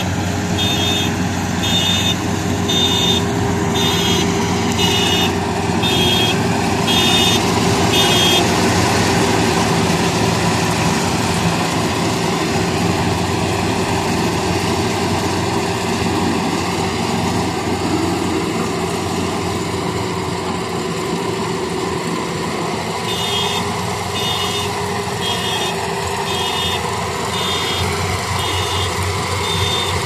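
Rice combine harvester's diesel engine running steadily as it cuts paddy. A warning beeper sounds about once a second for the first eight seconds and starts again about three-quarters of the way in.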